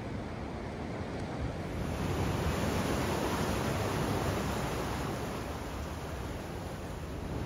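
Ocean surf washing on the shore, an even rushing noise with some wind on the microphone, a little louder from about two seconds in.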